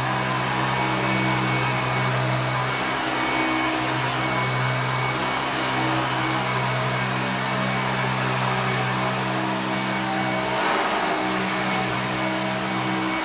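1989 Hoover Elite 350 top-fill-bag upright vacuum cleaner running steadily: a constant motor hum over a rushing of air. The hum briefly wavers near the end.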